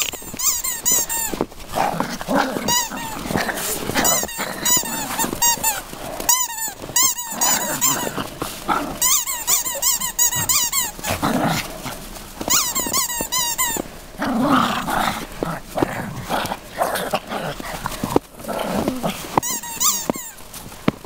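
Several small dogs yipping and barking excitedly while they play, in quick high-pitched runs that come in bursts every second or two.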